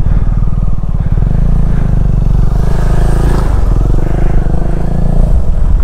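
Single-cylinder engine of a KTM 390 Adventure motorcycle running at low revs, a steady throb of firing pulses close to the microphone.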